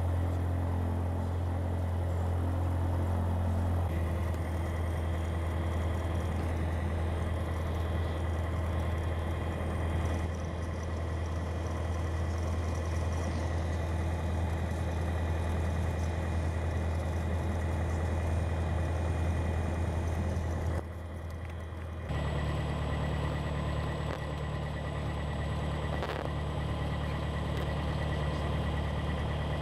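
Piper PA-28's piston engine and propeller running as the aircraft taxis, heard inside the cabin as a steady hum. The note shifts about four seconds in, dips briefly about two-thirds of the way through, then returns at a higher pitch.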